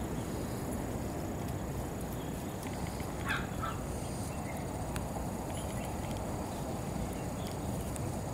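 Steady low outdoor background noise, with a brief high chirping call about three seconds in.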